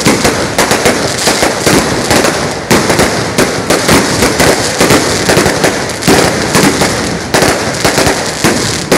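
Strings of firecrackers going off in a dense, continuous crackle of rapid bangs, with fresh loud surges several times as new strings catch.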